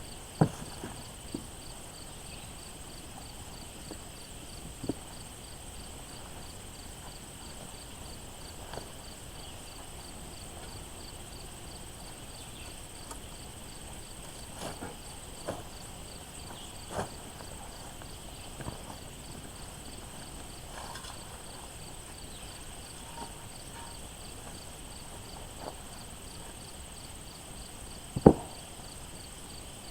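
Insects trilling steadily at several high pitches, one of them pulsing evenly, with scattered short knocks and thuds, the loudest near the end.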